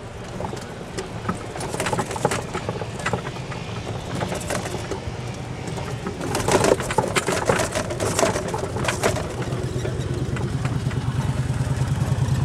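A small engine putters steadily and grows louder near the end, with scattered sharp clicks and crackles over it.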